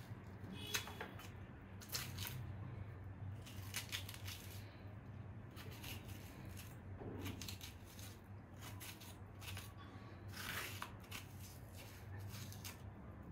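Steel spoon scraping the soft flesh out of a halved zucchini: faint, irregular scrapes with a few light clicks, over a low steady hum.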